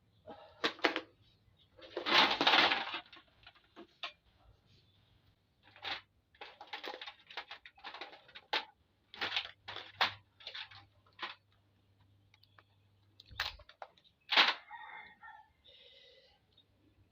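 Mud crab being eaten: a run of short cracks and crunches of the shell, with a longer, louder burst about two seconds in and two sharp cracks near the end.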